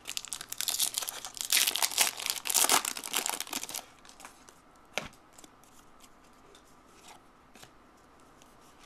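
A trading card pack's wrapper being torn open and crumpled for about four seconds, then a single sharp click about five seconds in.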